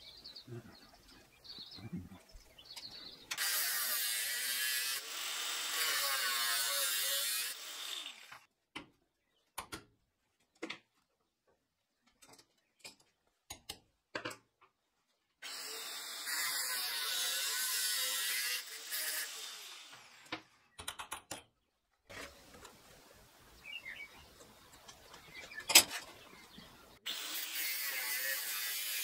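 Angle grinder cutting into a steel rod clamped in a vise, running in three bursts of a few seconds each. Between the bursts come short clicks and knocks, with one sharp knock shortly before the last burst.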